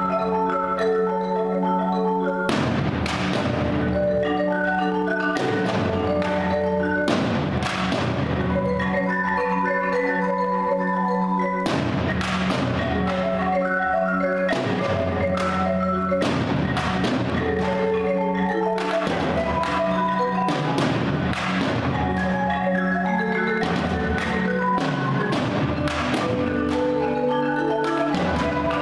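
Two marimbas played with mallets by four players in fast repeating patterns, over a held low note, with sharp percussive hits cutting in every second or two.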